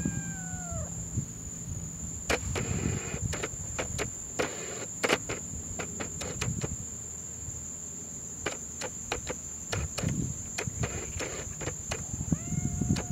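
Clicks of a Sony Alpha SLT-A57's control dial being turned to work the digital zoom, scattered and sometimes in quick runs, with a few short rustles of handling. A steady high-pitched whine runs underneath, and a short squeak that drops in pitch comes near the start and again at the end.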